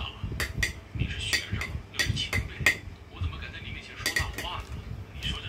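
Cutlery clinking and scraping against dishes while eating: an irregular run of sharp clicks.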